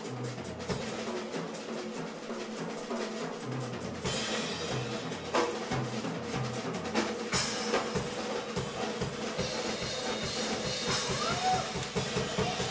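A live band playing: a Yamaha drum kit with guitars holding sustained notes. A loud hit with a long high wash comes about four seconds in, and from about halfway the drumming turns into fast, busy strokes.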